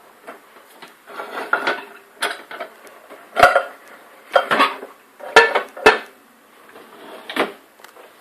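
Dishes and cutlery clinking and clattering in a dishwasher's racks: a series of sharp, irregular clinks and knocks, the loudest in the middle.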